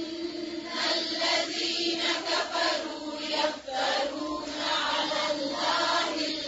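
Quran recitation in Arabic with tajweed: a chanted, melodic voice with long held notes, running without a break.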